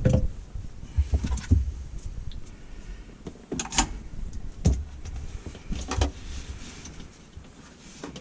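Scattered knocks and clunks of tools and drain parts being handled during work on a kitchen sink drain and garbage disposal, about half a dozen separate hits.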